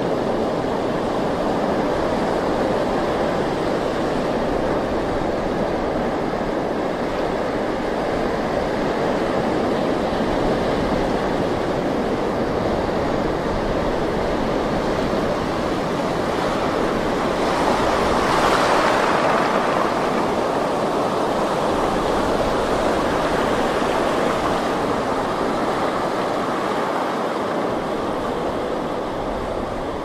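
Ocean surf breaking on a beach: a continuous wash of waves, with one wave breaking louder about eighteen seconds in.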